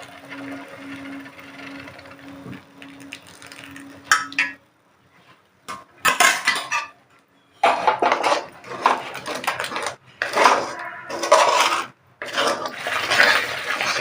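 Metal spoon scraping and stirring a thick ginger and jaggery mixture in a pan, in strokes of a second or two with brief pauses, as it cooks down. A low steady hum runs underneath for the first few seconds.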